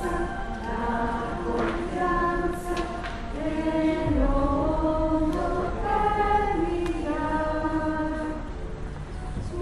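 A choir singing a slow, chant-like melody, each note held for about a second before moving to the next.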